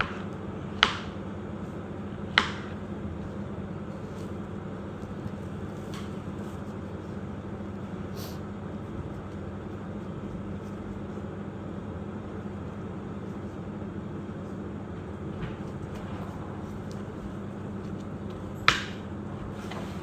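A steady low hum with three short, sharp knocks over it: one about a second in, another soon after, and one near the end.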